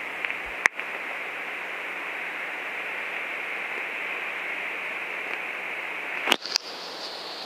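Steady hiss, with a sharp click about two-thirds of a second in and two more close together around six seconds in. After those clicks the hiss turns quieter and higher.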